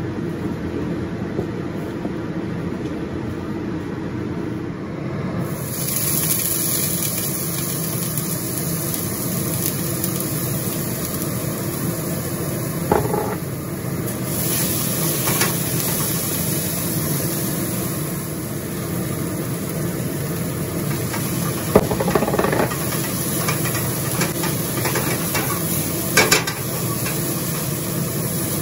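Oil sizzling in a wok as dried sakura shrimp and aromatics stir-fry, the hiss growing louder about five seconds in. The spatula scrapes and taps the wok a few times, over a steady low hum.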